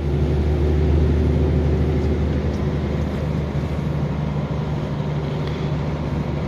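KAMAZ truck's diesel engine running steadily under way with road noise, heard from inside the cab as a constant low drone.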